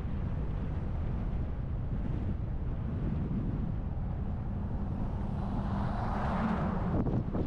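Steady low wind and road rumble of a car on the move. About five seconds in, a hiss and a steady hum swell up, then cut off sharply near the end.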